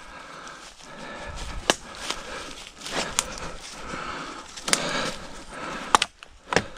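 Footsteps crunching through dry fallen leaves and a person pushing through bare brush, branches scraping along clothing, with several sharp twig snaps.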